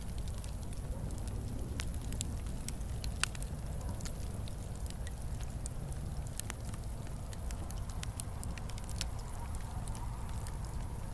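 Wood fire burning in a fireplace: a steady low rumble with scattered sharp crackles and pops, one louder pop about three seconds in.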